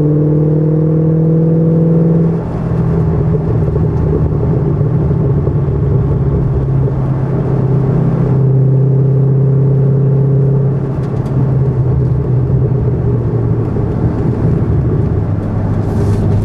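Shelby GT500's V8 engine heard from inside the cabin, pulling steadily around the track with road and wind noise. The engine pitch drops about two seconds in as the driver lifts, holds, then changes again twice more near the middle and end.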